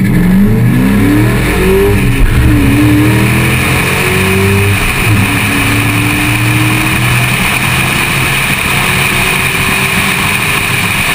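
Ford Mustang Mach 1 engine at full throttle on a drag run. It climbs through the gears, and the pitch drops back at each shift, then it pulls in one long steady rise over the second half. Wind rushes over the hood-mounted microphone, louder as the speed builds.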